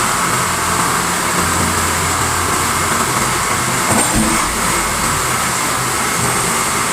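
Hydraulic scrap-metal press running steadily, its pump motor humming under a broad mechanical noise, with a short knock about four seconds in.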